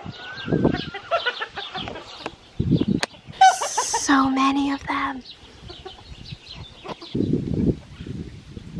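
Domestic chickens clucking, and a rooster crowing once: one long call starting about three and a half seconds in and lasting nearly two seconds. A few low rumbles of wind buffet the microphone.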